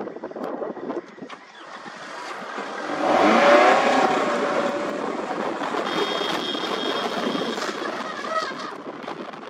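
A vehicle's engine revving and driving, with rough road and wind noise; the engine surges loudest about three seconds in.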